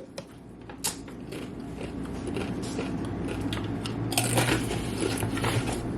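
Crinkling and crunching as a takeout bag of tortilla chips is handled, with a sharp click about a second in and a busier stretch around four to five seconds in. A low steady hum joins about three seconds in.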